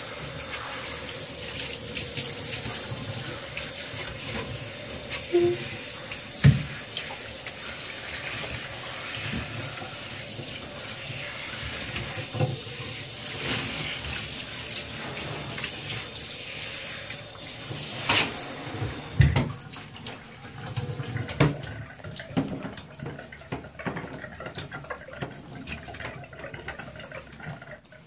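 Hand-held shower head spraying water in a bathtub, rinsing a puppy, with a few sharp knocks against the tub. The spray stops about two-thirds of the way through, leaving scattered knocks and handling noises.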